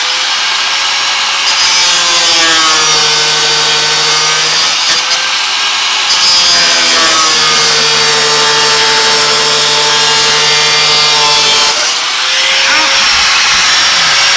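Angle grinder cutting through a metal bracket: its motor whine sags in pitch twice for several seconds as the disc bites into the metal, and picks back up in between and near the end.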